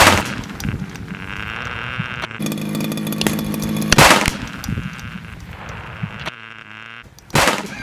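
An explosive charge packed into a radio-controlled car goes off in a sharp, loud blast. The blast is heard three times, about four seconds and then about three seconds apart, with a noisy stretch between the bangs.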